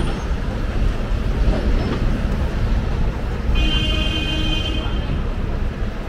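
Busy city street ambience: a steady low rumble of traffic with passers-by. About halfway through, a high-pitched squeal sounds for nearly two seconds.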